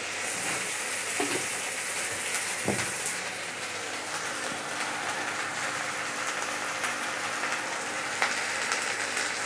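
Potato chunks and onions frying in hot oil in a kadai, a steady sizzle, with a single knock about three seconds in.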